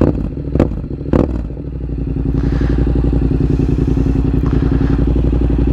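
Yamaha MT-07's parallel-twin engine running through a Mivv GP exhaust with no baffles and no catalytic converter, giving three sharp exhaust pops in the first second or so, then idling steadily.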